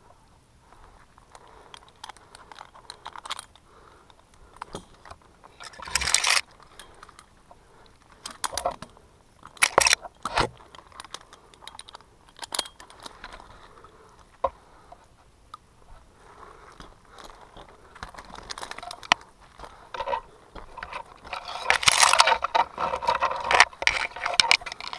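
Irregular clinks, scrapes and crunches, with a few sharp knocks about 6 and 10 seconds in and a busier stretch of handling noise near the end.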